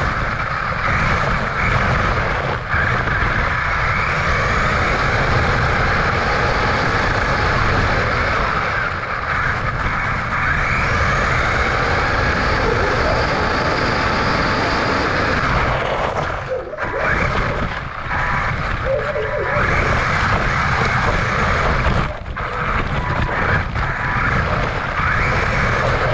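Electric RC car running: a steady noisy whir from its motor, gears and tyres on the ground, dipping briefly twice in the second half.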